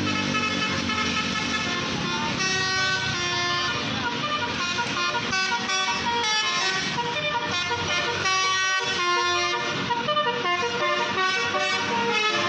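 Bus 'telolet' multi-tone air horn with roof-mounted trumpets playing a tune of short notes that jump from pitch to pitch, starting about two seconds in.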